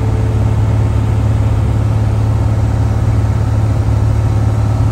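A Cessna 170B's six-cylinder piston engine and propeller running steadily in cruise or on approach, heard from inside the cabin as a loud, even, low drone.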